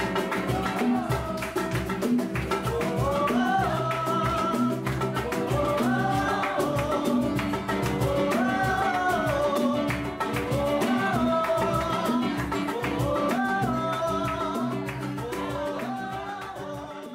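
Upbeat Latin-style music with a sung melody over a steady hand-percussion beat, fading out near the end.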